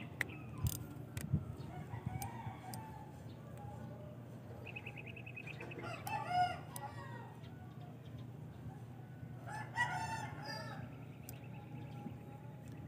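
Rooster crowing twice, once about six seconds in and again about ten seconds in, each crow about a second long, over a steady low hum.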